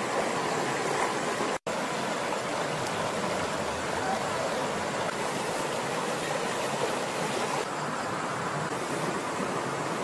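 River water rushing steadily over rocks, cut off for an instant about one and a half seconds in.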